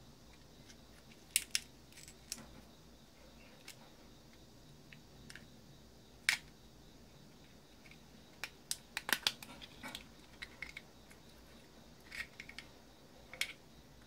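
Scattered small clicks and taps of hard plastic and metal vacuum-cleaner parts being handled and worked with a screwdriver, busiest in a quick run of clicks about nine seconds in.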